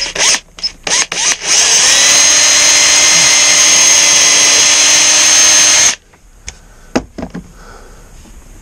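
Cordless drill/driver blipped a few times in quick succession, then run steadily for about four seconds before stopping abruptly, followed by a couple of light knocks.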